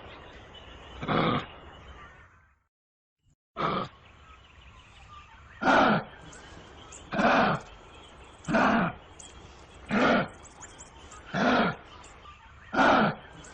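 Kangaroo giving short, harsh guttural calls, about one every second and a half, eight in all. The calls stop for about a second early on, then resume at the same pace.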